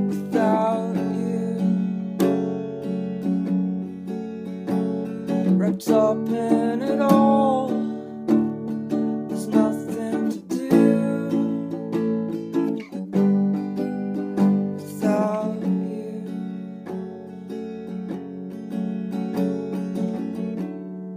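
Acoustic guitar strummed, playing a steady run of chords in an unbroken instrumental passage of a song.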